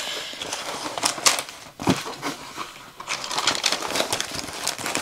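Rolled diamond painting canvas being unrolled and handled, its plastic cover film crinkling and rustling irregularly.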